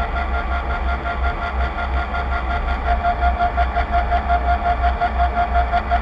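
Steady whine of the tug's drive motor over a low rumble. About halfway through, the whine starts pulsing at a steady rate of roughly three to four beats a second.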